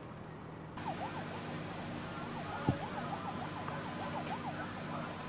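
Emergency vehicle siren yelping in fast, repeated rising-and-falling sweeps, starting about a second in, over a steady low engine hum. A single sharp knock comes near the middle.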